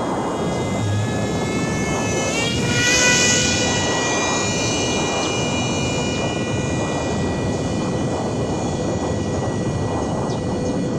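Electric motor and propeller of a small RC foam plane whining in flight. Its pitch rises sharply about two and a half seconds in, then holds steady. A constant rushing noise runs underneath.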